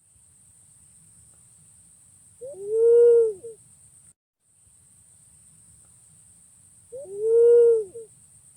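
Punai pink (walik ungu) pigeon cooing twice, about four seconds apart. Each call is a single low hooting coo of about a second that rises then falls in pitch, with a short note on either side, played as a lure call over a steady recording hiss.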